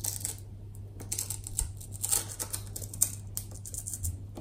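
Plastic spudger prying a heat-softened, glued plastic cover strip off an all-in-one computer's frame: irregular small clicks and ticks of plastic working against plastic, over a low steady hum.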